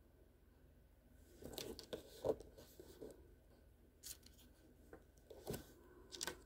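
Hands handling something small: a short burst of rustling and crinkling about a second in, then a few sharp little clicks and taps spread through the rest.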